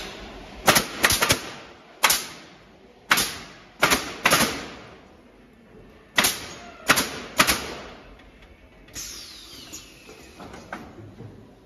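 Pneumatic coil nailers on a wooden pallet nailing machine firing nails into pallet boards: about a dozen sharp bangs, mostly in quick clusters of two or three, over the first seven and a half seconds. Near nine seconds there is a falling whine.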